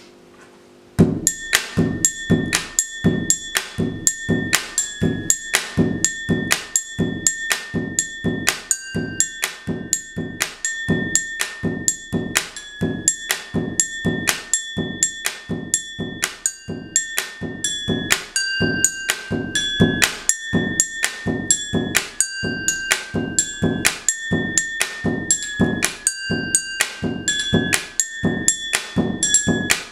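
Pen-tapping beat played with a pen on a tabletop and on drinking glasses. It starts about a second in: a fast, steady rhythm of dull knocks mixed with ringing glass tones of several pitches, and the pitches of the rings change as the pattern goes on.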